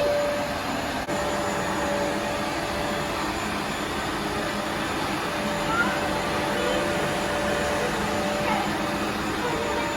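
Carpet cleaner running with a steady motor whir.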